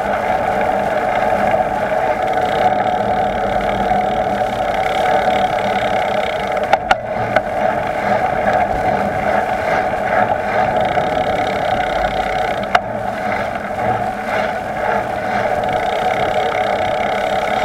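Steady rush of wind and tyre noise from a bicycle ridden along a road, heard from the moving bike. Two sharp clicks or knocks come about seven and thirteen seconds in.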